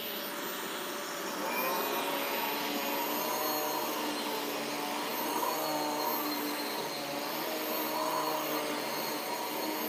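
Riccar upright vacuum cleaner with two suction motors running steadily as it is pushed back and forth over carpet. It makes a constant motor whine with a high steady tone, its lower tones wavering slightly as it moves.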